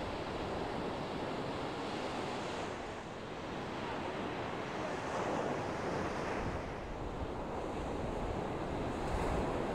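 Ocean surf breaking on a beach: a steady wash of waves that swells a little louder about halfway through and again near the end.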